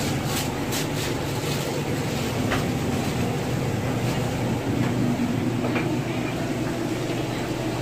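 Steady low mechanical hum from a food-truck kitchen's running equipment, with a few light clicks and knocks, several in the first second.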